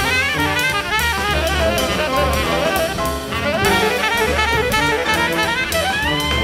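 Live jazz nonet playing: saxophones and brass (trumpet, trombone, tuba) carry quick melodic lines over piano, double bass and drum kit, with a long held horn note near the end.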